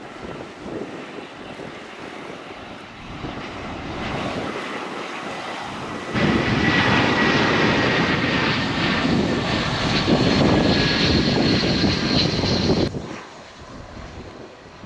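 Jet airliner on final approach and landing, its engines growing louder, then much louder with a high whine from about six seconds in, before dropping off sharply near the end.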